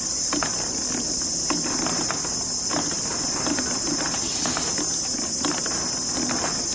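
Marbles rolling and clattering down a plastic marble-run track: a steady high rolling hiss with many scattered clicks and knocks as the balls hit the track pieces.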